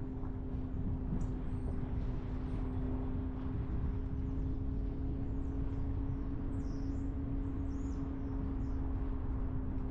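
Car driving at a steady pace: a dense road and engine rumble with a steady low hum. A few faint high chirps come in over it in the second half.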